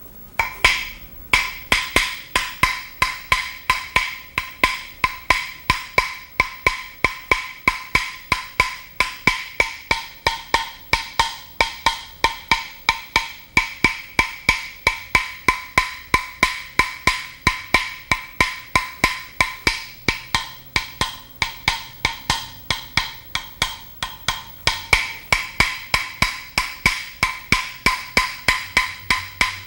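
Bone percussion: the toothed edge of an animal jawbone is struck or worked against a flat bone in a steady, even rhythm of about three dry clicks a second. Each click has a high ringing note. It starts about half a second in.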